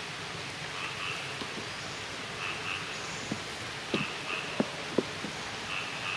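Outdoor ambience after rain: a steady hiss with short high chirps, mostly in pairs, every second or two, and a few sharp clicks about two-thirds of the way through.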